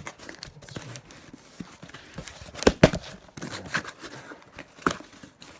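Packaging being opened by hand: light rustling and scraping with scattered sharp clicks and knocks, the loudest a quick pair about three seconds in and another near five seconds.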